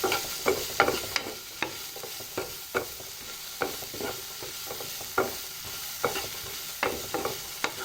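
Vegetables frying in hot oil in a pan, with a steady sizzle, while a utensil stirs them and clicks against the pan in short sharp knocks about twice a second.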